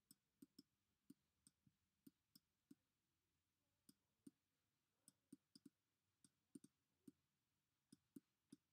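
Near silence broken by faint, irregular clicks of a stylus tapping a tablet surface while handwriting, about twenty in all.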